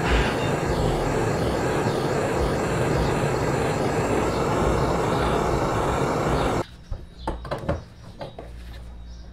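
Handheld gas torch flame burning with a steady hiss and low rumble, stopping abruptly about two-thirds through. A few sharp clicks of pliers on the metal model car body follow.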